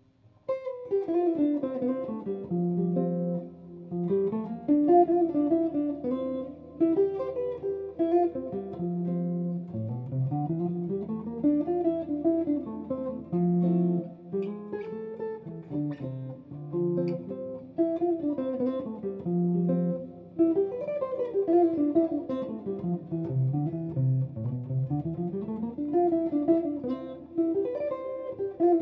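Telecaster electric guitar played in flowing single-note runs that climb and fall, with held low notes between phrases; the playing starts about half a second in.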